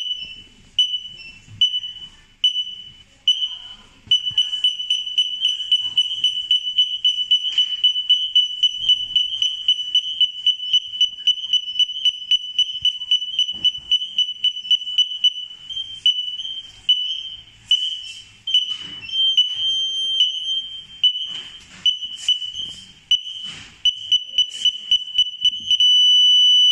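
Reversing-radar (ultrasonic parking sensor) warning buzzer on a truck backup camera system, giving high-pitched beeps as an obstacle is sensed. The beeps start slow, turn rapid a few seconds in, vary in pace later, and near the end become one continuous tone as the obstacle reads about 0.5 m away.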